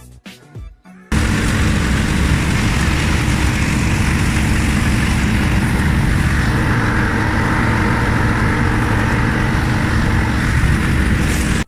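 Heavy farm machinery running close up: a loud, steady engine rumble under a dense noise. It starts abruptly about a second in and cuts off sharply at the end.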